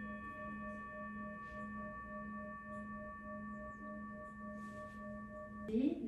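Singing bowl ringing out after a strike: a sustained low hum with several higher overtones, pulsing slowly in level. The ringing cuts off abruptly near the end.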